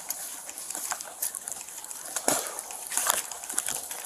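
Rustling and scuffing on a police officer's body-worn camera, with scattered soft clicks and a couple of sharper knocks a little past halfway.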